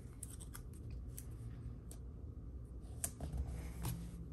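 Faint handling of paper cash and budget pages, with a few scattered light clicks and rustles.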